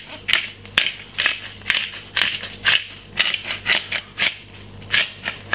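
Hand-twisted pepper mill grinding black peppercorns: a steady run of short gritty crunches, about two to three twists a second.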